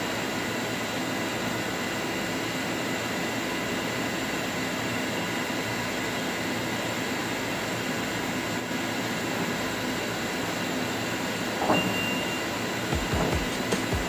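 Steady hum of a CNC wire-cutting (wire EDM) machine and shop machinery running, several steady tones over an even noise. A brief high tone sounds about twelve seconds in, and low thumps begin near the end.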